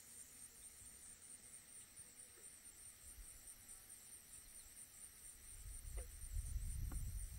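Faint, steady high-pitched chirring of insects, cricket-like, with a low rumble building up over the last two seconds.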